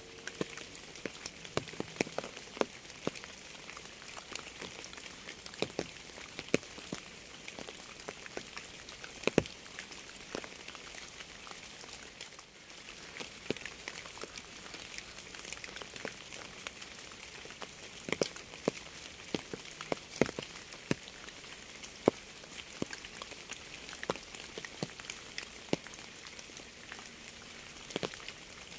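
Steady rain hiss with sharp, irregular taps of single drops striking a surface, about one or two a second.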